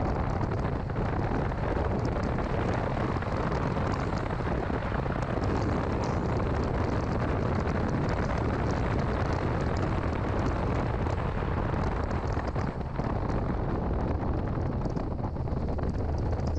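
2006 Mini Cooper S being driven: a steady engine drone mixed with road and wind noise.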